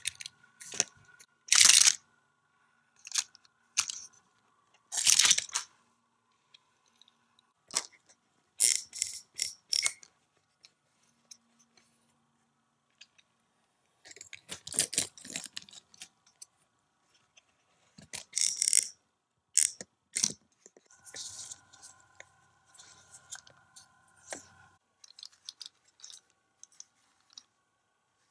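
Plastic parts of a Hot Wheels Auto Dealership playset clicking, rattling and scraping as they are worked by hand, with a die-cast car moved over the plastic turntable and elevator. The sounds come in short irregular bursts with pauses between them.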